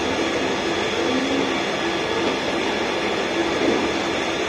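A 0.5 HP electric water pump motor running steadily, with a constant whirring, rushing noise as it pushes water through the pipeline.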